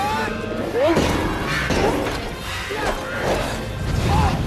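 Film fight sound mix: crashes and thuds together with short, gliding creature cries from a many-headed hydra, over orchestral score.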